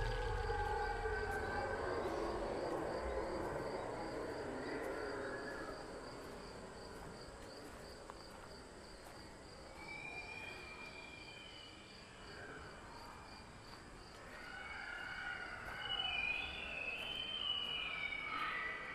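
Eerie ambience of sound effects: a steady cricket-like chirping, several chirps a second, under wavering tones that glide up and down, fading over the first half and swelling again near the end.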